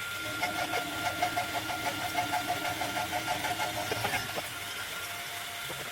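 A machine tool's motor running steadily while cutting an aluminium alloy plate, with a thin high whine and a fast, even pulsing from the cut.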